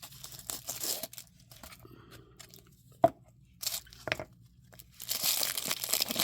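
Knife packaging being handled and unwrapped: scattered rustles and a few sharp clicks, then steady crinkling and tearing of the wrapping from about five seconds in.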